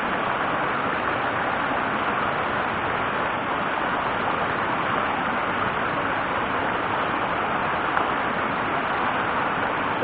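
Mountain stream rushing over a small cascade into a rocky pool: a steady wash of white-water noise.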